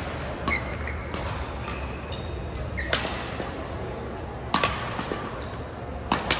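Badminton rally in a sports hall: several sharp racket hits on the shuttlecock, one to two seconds apart, with short high squeaks of shoes on the wooden court.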